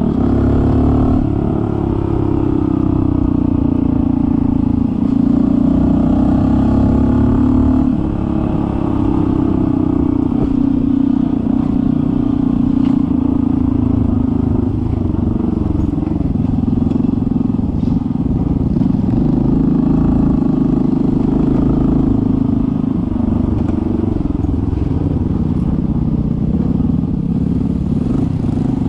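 Honda CT125's single-cylinder 125 cc four-stroke engine running steadily while riding, its note shifting a little with the throttle, over a low rumble.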